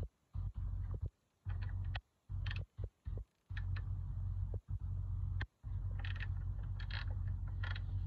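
Hand ratchet wrench clicking as a bolt on the engine is turned, a run of short sharp clicks, over a low rumble that cuts in and out abruptly several times.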